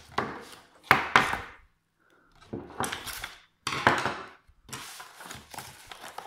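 Screwdrivers being handled out of a cardboard box onto a wooden table: a run of scraping, rustling and knocking noises in several separate bursts, the loudest about a second in.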